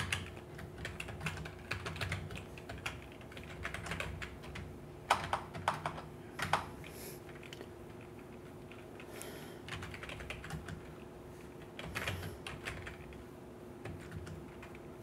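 Computer keyboard typing in irregular runs of key clicks, loudest in a quick cluster about five to six and a half seconds in, over a faint steady hum.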